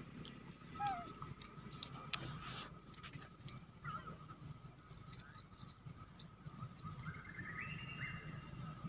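Faint outdoor ambience: a low steady hum under a thin steady high tone, with scattered small clicks and rustles. There are two brief chirps, a short falling one about a second in and a rising one near the end.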